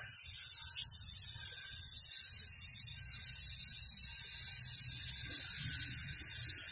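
Steady hiss of air escaping from a punctured tire through the reamed-open nail hole.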